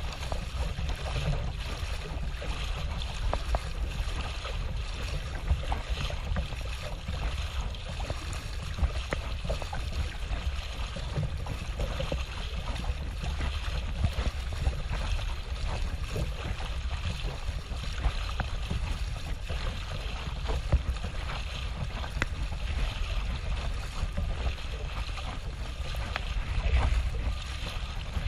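Water sloshing and splashing around a kayak on open sea water, over a steady low rumble of wind on the microphone.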